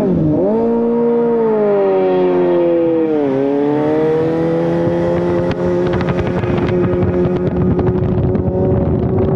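Suzuki GSX-S750 inline-four engine running while riding. Its note dips sharply about three seconds in, then holds steady and climbs slowly.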